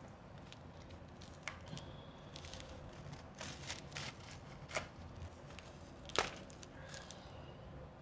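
Fingers digging into a foil tray of shaved ice and scooping out a clump: scattered crunches and crackles of the ice, the loudest about six seconds in.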